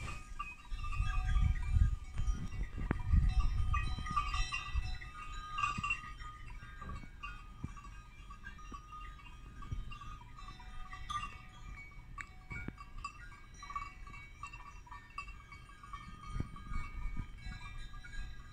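Bells on a small herd of goats clanking and tinkling irregularly as the animals move through the brush. A low rumble runs under the first few seconds.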